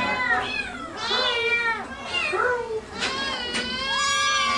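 Kittens meowing: about four high, wavering meows in a row, the last one drawn out.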